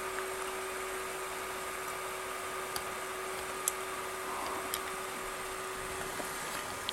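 Steady background hiss with a constant low tone, broken by three or four faint, separate clicks.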